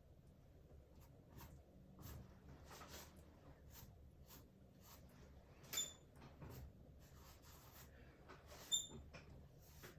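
Faint strokes of a paintbrush dabbing and dragging acrylic paint on canvas, with two short high squeaks, one about six seconds in and one about nine.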